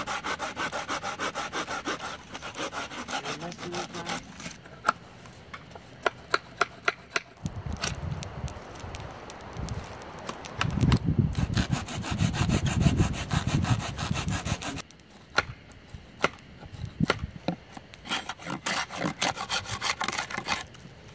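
Bahco Laplander folding saw cutting through a dead branch in quick, even strokes for the first few seconds. Scattered sharp knocks and clicks of wood being handled follow, with a stretch of low rumbling in the middle.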